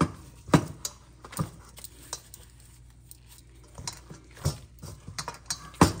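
Gloved hands kneading a soft flour-and-water dough in a stainless-steel bowl: irregular sharp knocks and slaps of dough and knuckles against the metal, with a quieter stretch in the middle.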